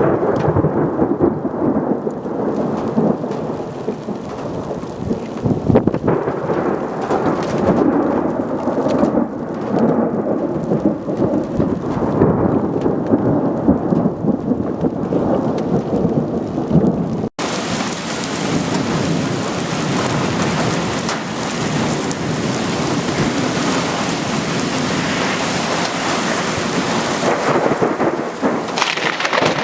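Heavy rain in a thunderstorm, a dense rushing noise with rumbling. About 17 s in it cuts out for a moment, then comes back as a brighter, hissing downpour.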